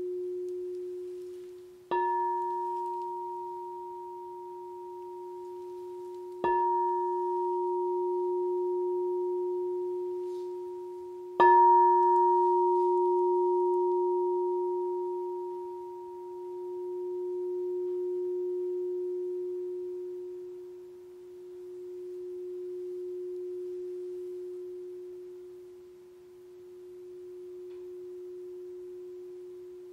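Lavender Aura Gold alchemy crystal singing bowl tuned to F# in the fourth octave, struck three times a few seconds apart and left ringing. The pure tone sustains with faint higher overtones and a slow waver in loudness every few seconds.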